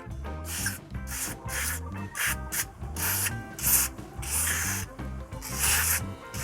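Background music with a repeating bass line, with a run of short hissing rubbing or scraping strokes, about nine of them at uneven spacing, over it.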